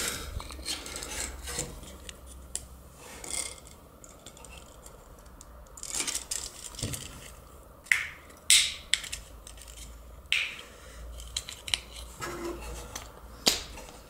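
A microwave oven's plastic high-voltage fuse holder being handled and pried open by hand: scattered irregular plastic clicks and rubbing, with a few sharper snaps.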